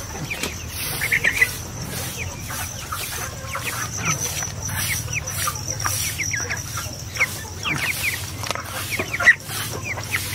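Young chickens clucking and peeping with many short, high, falling calls scattered throughout while they peck at feed, over a steady high-pitched tone in the background.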